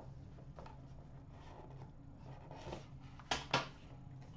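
Quiet handling of a cardboard trading-card box, with faint rustles and two sharp taps close together about three seconds in, over a low steady hum.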